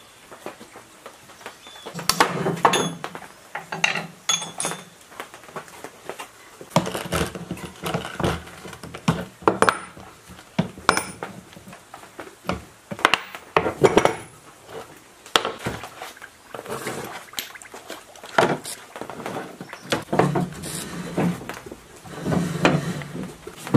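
Irregular metallic clinks, knocks and scraping as steel parts of an old lathe are handled and taken apart, including its three-jaw chuck and jaws; some strikes ring briefly.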